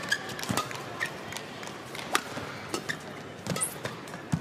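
Badminton rally: a series of sharp racket strikes on the shuttlecock, several under a second apart, with players' footfalls and short shoe squeaks on the court between them.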